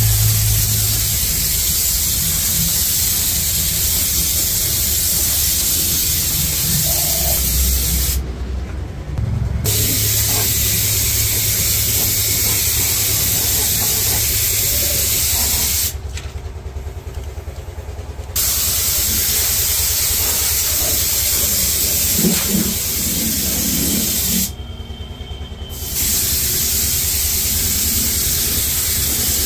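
Compressed-air spray gun spraying rubberized anti-rust underbody coating: a loud, steady hiss that stops briefly three times, over a steady low hum.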